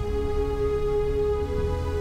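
Slow ambient background music of long held notes.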